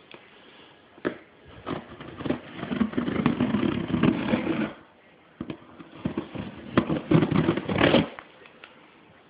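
A knife cutting the packing tape on a cardboard shipping box and the box being worked open: two long stretches of scraping and tearing, with sharp clicks and knocks between them.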